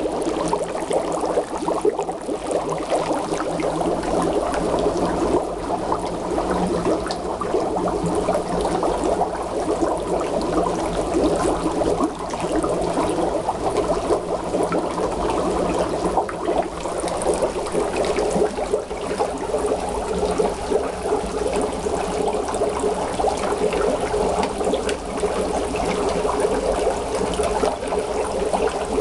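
Dry ice bubbling in a utility sink full of water: a steady, dense bubbling as the carbon dioxide gas comes off the submerged pellets.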